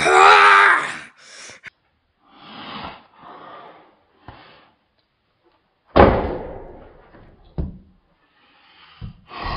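A boy yells loudly for about a second. About six seconds in there is a sharp bang as a mini basketball hoop hung over a wooden door is slammed, its backboard knocking against the door, and a smaller thump follows.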